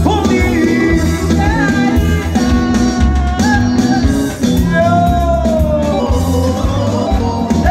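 Live band music with a steady low beat and bass under a lead melody of long held, gliding notes.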